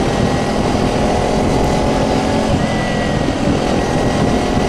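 Motorcycle engine running steadily at cruising speed, heard from the rider's seat, with wind rushing over the microphone.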